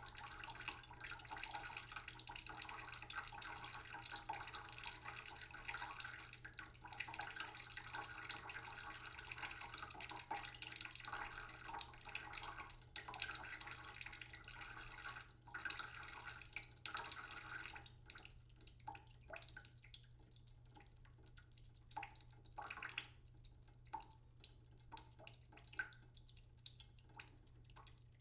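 A kitchen tap running slowly into a cooking pot in a sink, a steady trickling splash. About two-thirds of the way through the flow stops and only scattered drips are left.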